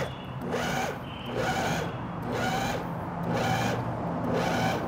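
Food processor pulsed in short bursts about once a second, its motor whirring as the blade chops chilled cubed salmon into a coarse mix.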